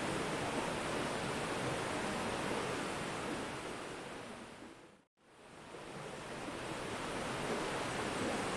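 Mountain river flowing, a steady rushing of water. Its sound fades to silence about five seconds in and swells straight back, like a crossfade at an edit join.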